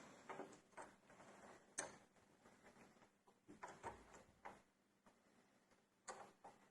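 Faint, irregular clicks and taps from door-lock parts being handled and fitted, a few in quick clusters, with no screwdriver motor running.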